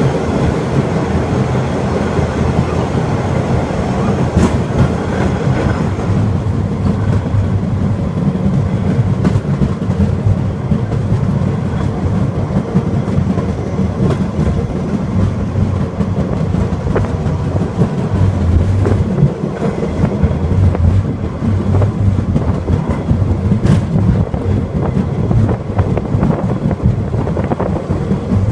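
Takachiho Amaterasu Railway's open sightseeing rail cart running along the track: a steady low rumble of wheels on rail, with an occasional sharp click.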